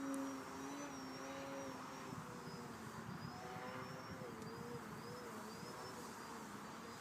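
Brushless electric motor and propeller of a 3D aerobatic RC model plane whining, its pitch wavering up and down with the throttle, more so in the second half.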